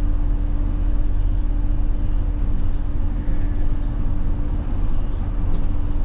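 Cabin noise inside a moving route bus: a steady low engine drone and road noise, with a steady hum held at one pitch.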